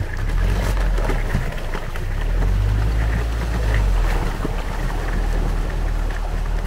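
Rosomakha ATV's engine running under load as its big tyres plough through a puddle skinned with about a centimetre of ice, water splashing and the thin ice crunching as it breaks. The engine note swells about two seconds in and eases off near four seconds.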